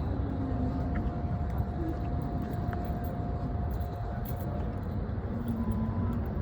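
Steady low rumble of background machinery or traffic, with a faint steady hum that stops a little after halfway.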